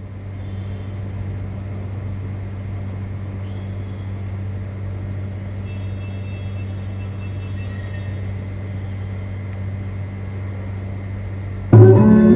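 A steady low hum with a few faint high tones over it; loud music cuts in near the end.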